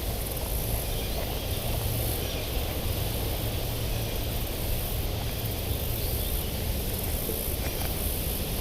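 Steady wind noise on the microphone: a low rumble under a constant hiss.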